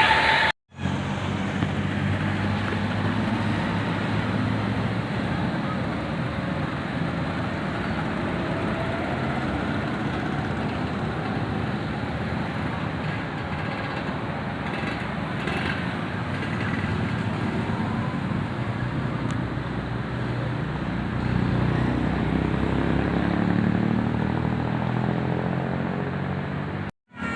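Road traffic: vehicle engines running and passing steadily, with a heavier engine growing louder about three-quarters of the way through.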